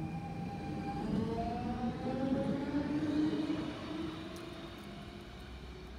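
Electric whine from a Copenhagen S-train's traction motors. Several tones rise together in pitch from about a second in, as the train accelerates, and then fade as it draws away.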